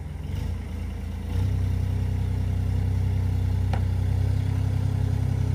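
Engine of a 2.3-tonne site dumper running as it drives along ground protection mats. The engine note steps up about a second and a half in, then holds steady.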